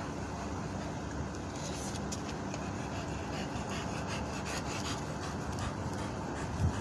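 A dog panting close by over a steady low background rumble, with one short low thump near the end.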